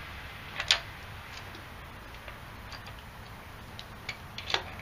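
Hand tool tapping metal on a Datsun L16 engine block while a piston is driven out of its bore past a rust ridge. There is one sharp knock about a second in, then a few lighter taps that come closer together near the end.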